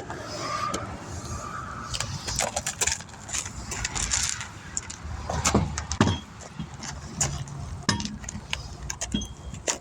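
Scattered metallic clinks and knocks of hands working on a car wheel.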